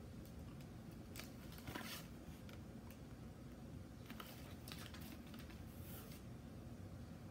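Faint rustles and crinkles of a stiff paper card being handled and turned over, coming in several short bursts.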